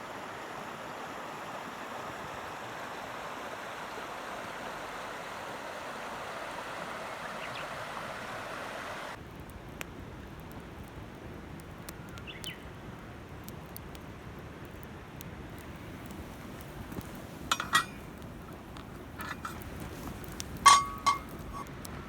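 Steady rushing outdoor noise that cuts off suddenly about nine seconds in, giving way to quieter ambience with scattered light clicks. Near the end come a few sharp, ringing metal clinks, the loudest sounds, in two groups about three seconds apart.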